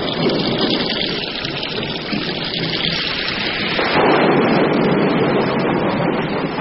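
Heavy rain in a storm: a dense, steady rush of downpour, louder from about four seconds in.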